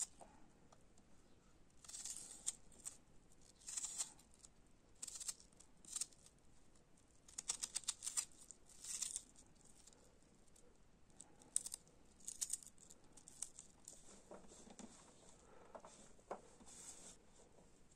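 Small knife cutting through an onion held in the hand: quiet, crisp crunches at irregular intervals, with diced pieces pattering onto a metal tray. Near the end, a softer rustling as the diced onion is pushed across the tray by hand.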